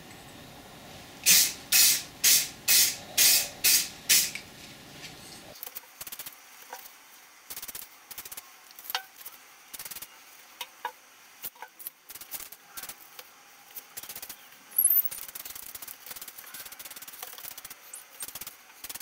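Aerosol spray-paint can sprayed in seven short bursts, a quick hiss each time, putting black base coat onto a steel stool frame. It is followed by scattered light clicks and taps.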